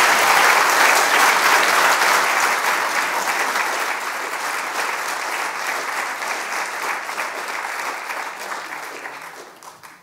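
Audience applauding, loudest at the start and slowly fading away toward the end.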